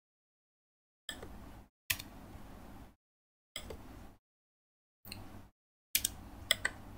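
A few sharp clicks of laptop keyboard keys as a spreadsheet formula is typed, over a faint low hum, broken up by stretches of dead silence.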